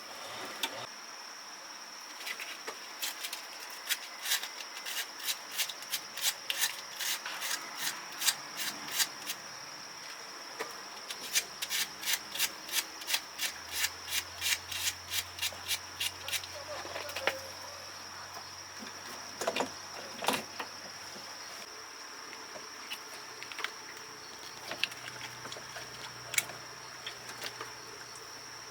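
Repeated hand rubbing or scraping strokes, about three a second, thinning out after the middle, over a steady high insect chirring.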